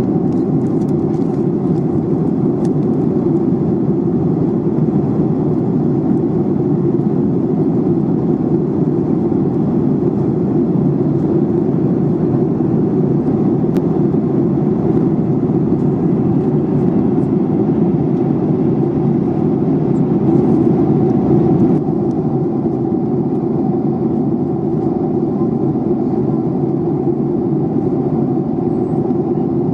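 Airliner cabin noise: a steady low rumble and rushing hiss from the jet engines and airflow, easing slightly in the upper hiss about 22 seconds in.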